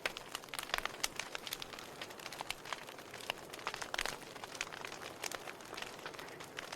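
Wood fire burning in a fireplace: a steady soft hiss with irregular sharp crackles and pops, several a second.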